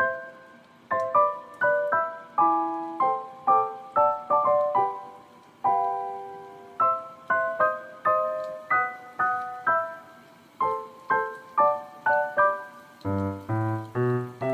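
Background piano music: a light melody of single struck notes and chords, with lower bass notes coming in near the end.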